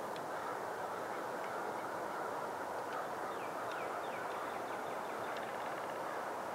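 Faint waterfowl calls over a steady rushing background noise, with a few short falling calls about three to four seconds in.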